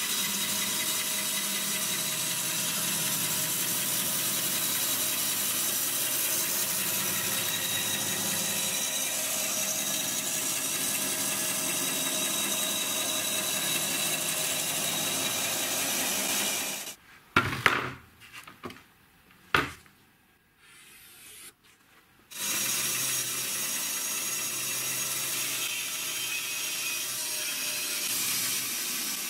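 Homemade bandsaw with wheels made from old car hubs running steadily, its motor giving a steady whine. It stops about seventeen seconds in, leaving a few knocks and clicks. From about twenty-two seconds it runs again, cutting a curve through veneered particleboard.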